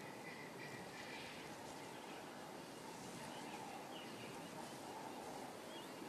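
Faint steady outdoor bush ambience with a few short, distant bird chirps.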